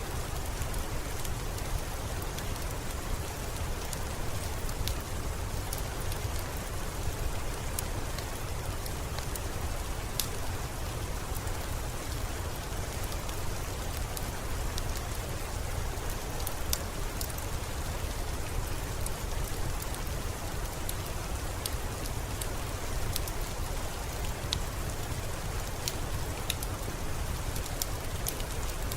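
Steady heavy rain with a low rumble underneath, and scattered sharp crackles and pops from a wood fire.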